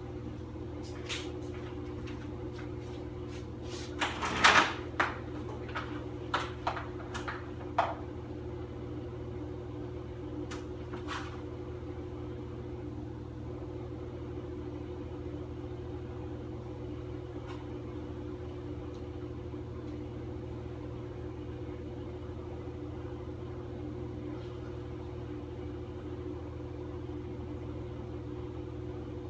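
A handful of knocks and scrapes from hands working along a metal garage door track, loudest about four seconds in and dying out after about eleven seconds, over a steady low machine hum.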